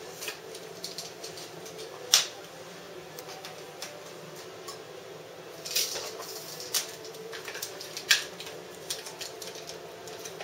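Self-adhesive faux stainless steel vinyl film crackling and clicking as it is handled and pressed by hand onto a refrigerator door, with irregular sharp snaps, the loudest about two, six and eight seconds in, over a faint steady hum.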